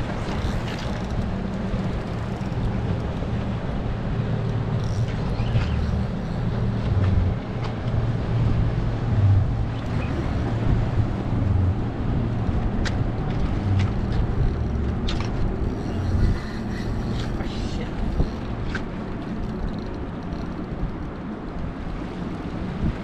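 Steady low engine hum, with a few sharp clicks scattered through its middle part.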